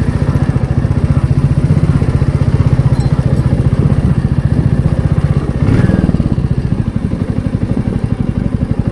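Motorcycle engine running under way with a steady, rapid pulsing exhaust beat, which changes briefly about six seconds in.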